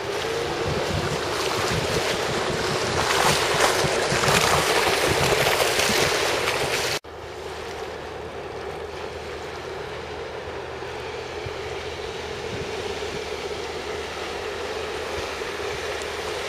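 Honda BF75 four-stroke outboard on a rigid inflatable boat running at speed, a steady engine hum heard across the water. For the first seven seconds heavy wind noise on the microphone covers it; after a sudden drop about seven seconds in, the engine hum goes on under lighter wind and water noise.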